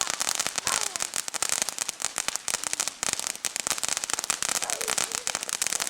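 Store-bought consumer firework crackling, a dense, continuous stream of rapid sharp pops.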